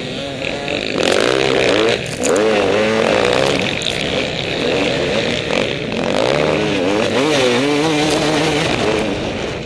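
KTM 200 EXC two-stroke dirt bike engine revving up and down over and over as it is ridden along a rough trail, with wind noise and a few sharp knocks from the bumps.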